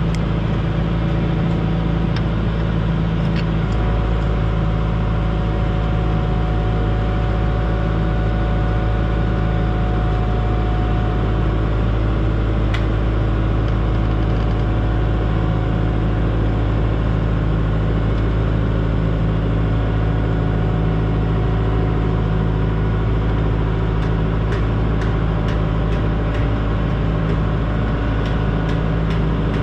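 Diesel engine of a 120-size excavator running steadily at an even speed, with a few light ticks near the end.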